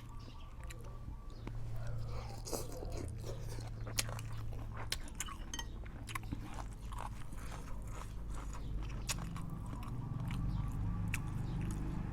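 A person chewing and biting food close to the microphone, with many small crunchy clicks, over a low steady hum.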